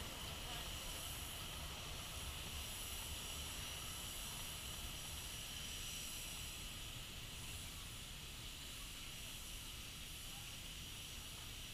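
Ride-on miniature train running on its track: a steady hiss over a low, uneven rumble that fades slowly.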